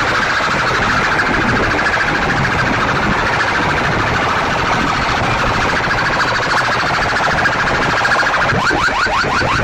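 Stacked horn loudspeakers of a competition sound rig blasting a harsh, distorted siren-like sound at full volume. Near the end it turns into a fast run of rising chirps, several a second.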